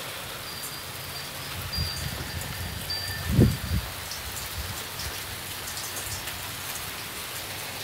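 Hail falling with rain: a steady patter with many small sharp ticks of hailstones striking, and a dull thump about three and a half seconds in.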